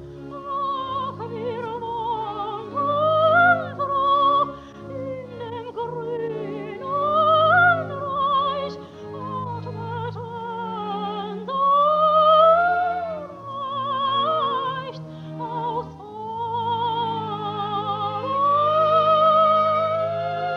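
Soprano singing an operatic aria with wide vibrato over orchestral accompaniment, in phrases of a few seconds that rise and fall. The 1936 recording sounds dull, with no top treble.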